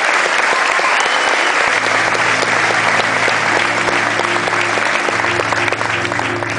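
Audience applauding steadily. Low sustained music notes come in under the clapping about two seconds in.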